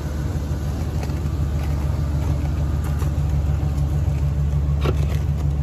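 2013 Chevrolet Silverado 2500HD's gas V8 engine idling with a steady low rumble, running nice and smoothly at over 140,000 miles. A light click sounds near the end.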